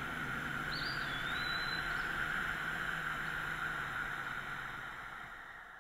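Steady outdoor ambient hiss with a brief high chirp about a second in, fading out near the end.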